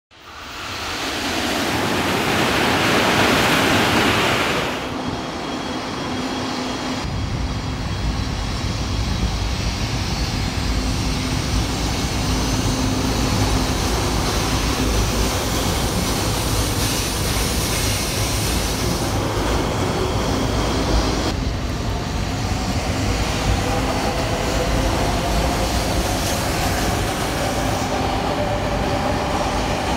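High-speed electric train running: a loud rush of train noise for the first few seconds, then a steady low rumble of the train running at speed. A faint whine slowly rises in pitch in the last several seconds.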